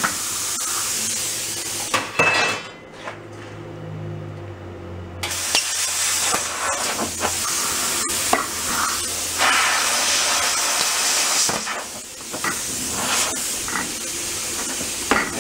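Hand-held plasma cutter hissing and crackling as it cuts through rusted sheet-metal. The cut stops about two seconds in and starts again some three seconds later.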